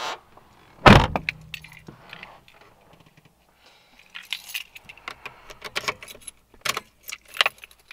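A heavy thump about a second in, a car door shutting, then a run of jangling and clicking from a bunch of keys as a key is put into the ignition of a 1998 Mitsubishi Lancer.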